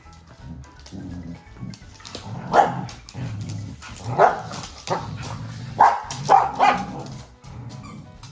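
Australian shepherds barking during play, about five short barks between roughly two and a half and seven seconds in.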